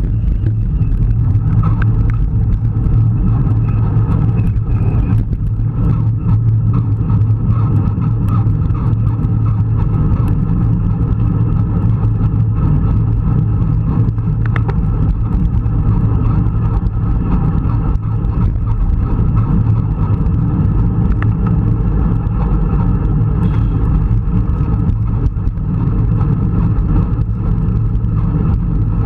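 Steady wind rush and road noise on the camera's microphone from a road bike moving at speed in a group of cyclists, heaviest in the low end, with a few faint clicks.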